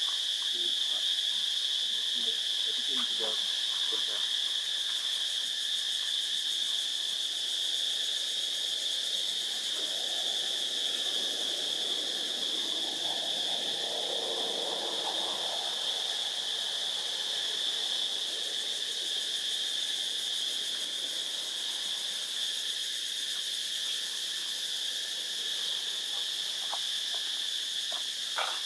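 Steady, high-pitched drone of an insect chorus in the trees, unbroken throughout, with a few faint short chirps in the first few seconds.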